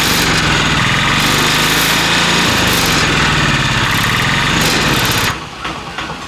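Mahindra Alfa auto-rickshaw engine running loud and hard, its pitch stepping down about two and a half seconds in. About five seconds in the sound cuts abruptly to a quieter running engine with light rattles.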